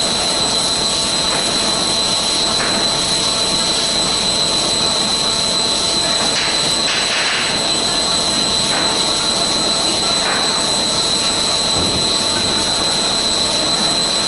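CNC drilling machine's core drill (annular cutter) boring a large hole in metal plate: a steady cutting noise with a constant high-pitched whine running over it.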